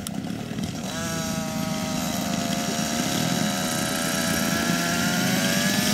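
Radio-controlled model helicopter spooling up about a second in, then running with a steady high-pitched whine over a lower engine drone, growing steadily louder as it lifts into a low hover.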